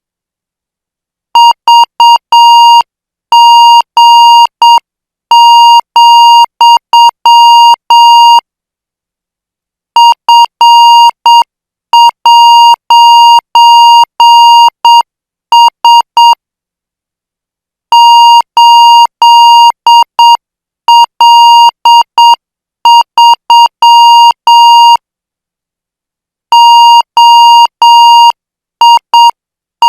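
Morse code practice signal: a steady tone of about 1 kHz keyed on and off in dots and dashes at 8 words per minute. The characters are sent in five-letter groups, with a silent pause of about a second and a half between groups.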